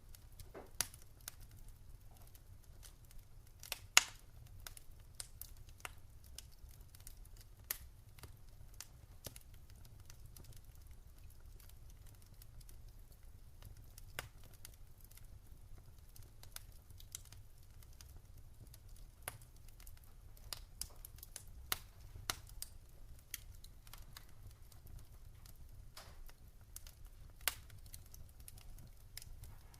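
Wood fire in a fireplace crackling, with scattered sharp pops at irregular intervals, the loudest about four seconds in, over a low steady rumble.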